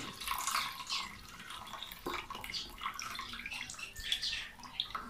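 Liquid pouring from a plastic bottle through a mesh strainer into a stainless steel bowl; after about a second the stream thins to trickling and dripping through the strainer.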